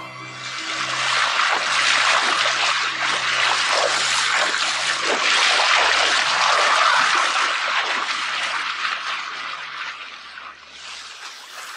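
African elephant wading through shallow water, its legs splashing and sloshing through it. The splashing builds over the first couple of seconds and fades away near the end.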